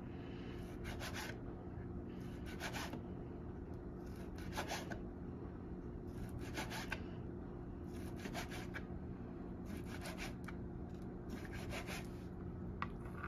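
Kitchen knife slicing raw grouse breast thin on a cutting board: a soft scraping stroke about every two seconds, seven in all, over a faint steady hum.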